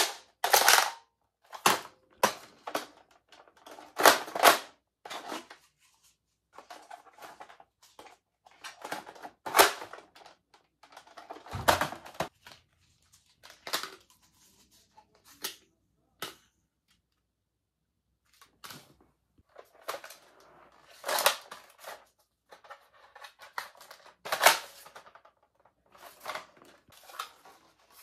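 Plastic toy blasters being handled and reloaded: irregular sharp clicks and clacks of priming mechanisms, cylinder and ammunition, some with short rattles, and a heavier knock with a low thud about twelve seconds in.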